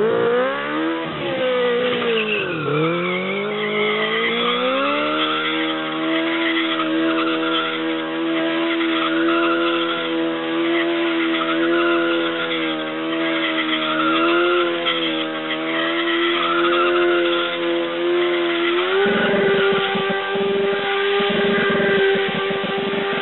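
Honda CBR600 F1's inline-four engine held at high revs in a standing burnout, the rear tyre spinning and smoking on the tarmac. The revs dip and rise in the first few seconds, then hold steady, stepping up to a slightly higher, rougher note near the end.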